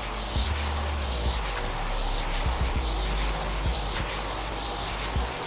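Hand sanding of a cast iron engine block's deck surface with 400-grit sandpaper lubricated with PB Blaster, steady back-and-forth strokes at about two to three a second, cleaning off old gasket material before a rebuild.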